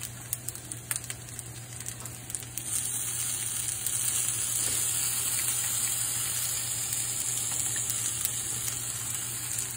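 Rice frying in a hot pan with soy sauce poured over it: a steady sizzle that gets louder about two and a half seconds in, after a few light clicks.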